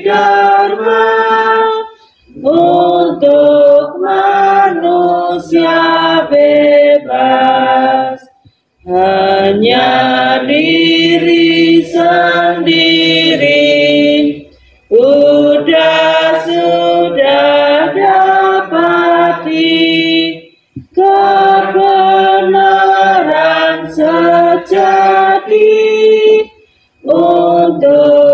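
A group of voices singing an Indonesian Buddhist devotional song together. The melody comes in phrases of about six seconds, with short breaks between them.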